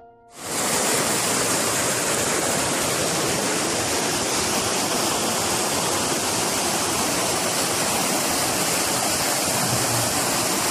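Steady rushing noise of water, starting suddenly about half a second in and holding at one loud level.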